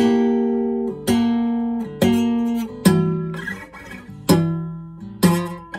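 Acoustic guitar played solo: chords picked about once a second and left to ring, each fading before the next is struck.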